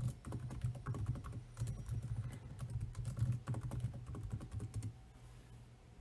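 Typing on a computer keyboard: a quick, uneven run of keystrokes that stops about five seconds in.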